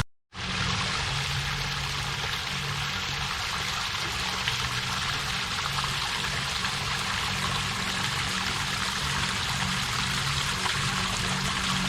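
Waterfall rushing steadily. The sound cuts out completely for a fraction of a second at the very start, then resumes unchanged.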